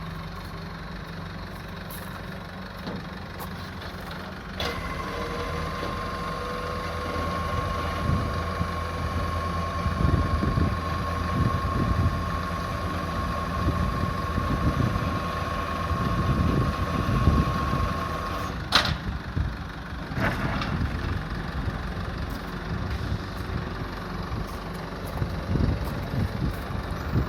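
Flatbed tow truck's diesel idling, with a steady whine from its hydraulics joining about four seconds in as the bed is worked. The whine runs for about fourteen seconds and stops with a sharp clunk, followed by a second clunk shortly after.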